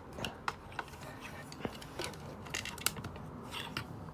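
Hard plastic action figure being handled and repositioned: scattered light clicks and taps of plastic parts, irregularly spaced.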